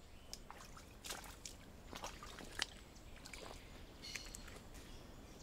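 Faint sloshing of water with scattered small clicks and splashes, as from wading through flooded mangrove mud; one sharper click about two and a half seconds in is the loudest. A brief high chirp sounds about four seconds in.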